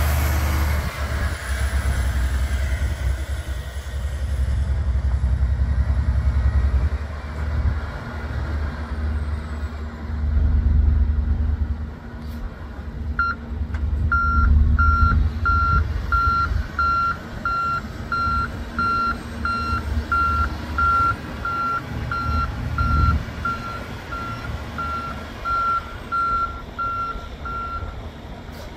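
Diesel engine of a 2015 Kenworth T680 day cab semi-tractor running as the truck moves. About halfway through, a reverse alarm starts beeping at a steady pitch, about three beeps every two seconds, and goes on almost to the end while the engine note eases off.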